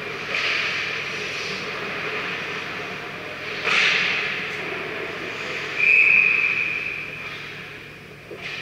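Ice-rink ambience during an ice hockey game: a steady hiss of arena noise, with skate blades scraping the ice near the net twice. The loudest thing is a brief high-pitched tone, about a second long, starting about six seconds in.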